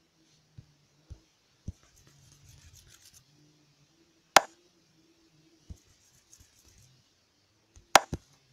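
Taps on a tablet's touchscreen while drawing in a painting app, with a faint scratchy stroke across the glass about two seconds in. The taps come singly, the loudest about halfway through and a quick pair near the end.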